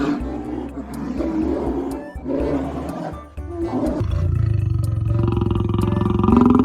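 An animal growling: several short rough calls, then one long drawn-out growl beginning about four seconds in, with music underneath.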